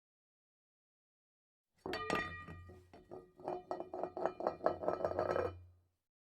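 A quick run of clinks and taps with ringing tones over a steady low hum, starting about two seconds in after dead silence and fading out near the end.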